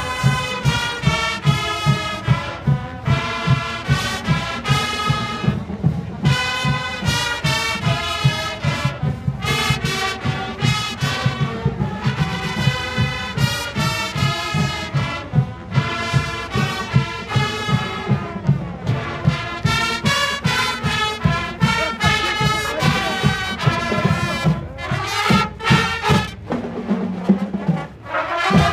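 Live brass band playing a tune, with trumpets and trombones over a steady low beat.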